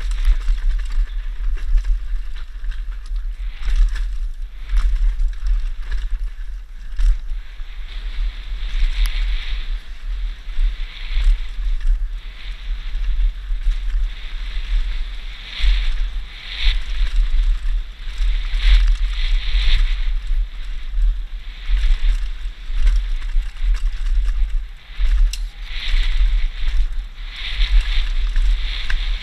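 Wind buffeting the microphone and tyres rolling fast over dry, dusty dirt as a Santa Cruz V10 downhill mountain bike descends a trail, with a deep rumble throughout and a rushing noise that swells and fades. Frequent short clicks and knocks from the bike hitting bumps and stones.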